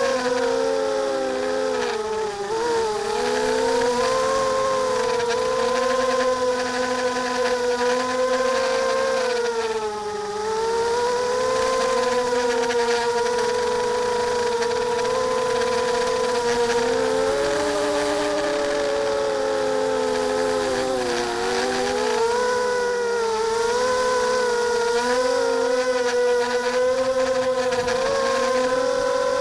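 Electric motors and propellers of a multirotor FPV drone whining in flight. Their several pitches rise and fall as the throttle changes, with short drops at three points.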